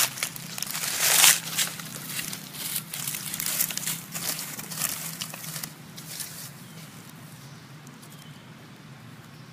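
Dry fallen leaves crackling and rustling in irregular bursts, loudest about a second in and dying away after about six seconds.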